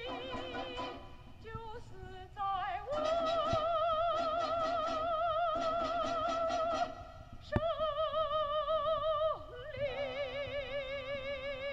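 Music from a smartphone carried through a 3D-printed acoustic earbud's air tubing: a singer holding long notes with vibrato over a steady beat.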